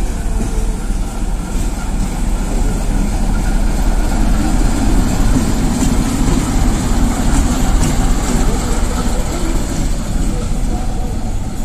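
ChME3 diesel shunting locomotive rolling past close by, its six-cylinder diesel engine running with a heavy low rumble. It is loudest about halfway through, as the locomotive goes by.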